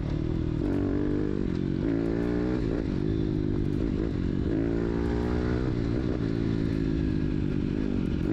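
140 cc four-stroke single-cylinder pit bike engine with a Scalvini racing exhaust, ridden under load, its pitch rising and falling several times as the throttle is opened and eased off. The rider judges its carburation still a little too rich.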